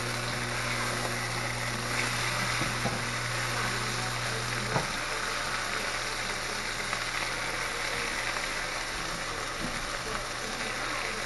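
Chicken cutlets sizzling steadily as they pan-fry in butter and olive oil in a skillet, with a light click about five seconds in.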